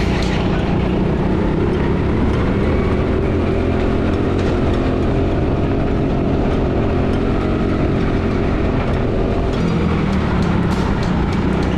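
Go-kart engine heard from the driver's seat, running hard around the track, its pitch rising and falling with the throttle through the corners.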